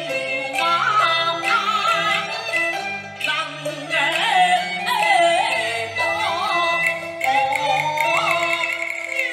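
Cantonese opera singing: a performer in the male civilian-military role sings a long, wavering melodic line over steady instrumental accompaniment.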